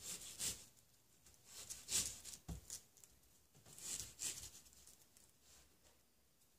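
Kitchen knife slicing down through an onion on a plastic cutting board: three or four short groups of crisp, crunchy cuts, with a single low knock about two and a half seconds in.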